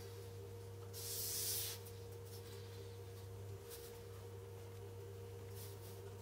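Handling of a small wooden block over paper: one short scraping rub about a second in, then faint pencil scratches as the wood is marked out, over a steady low hum.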